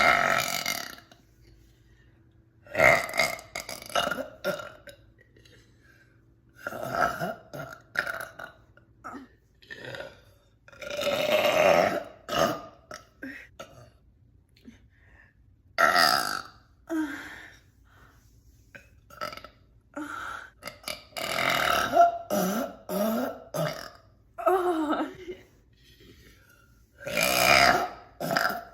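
A woman burping loudly over and over, a long burp every few seconds with quiet gaps between, some of them drawn out for more than a second.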